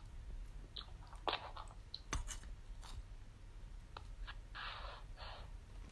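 A metal spoon clicks and scrapes against a plate of rice and fried chicken in scattered short strokes, with faint chewing. Two brief scraping sounds come close together near the end.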